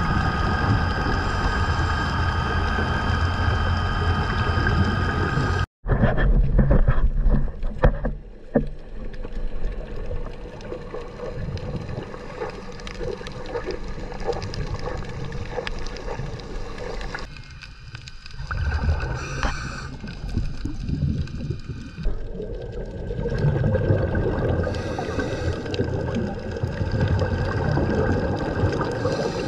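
Underwater sound: a boat motor's steady hum with a held whine for the first several seconds, cut off suddenly. It is followed by rushing, gurgling water and bubble noise that swells and fades.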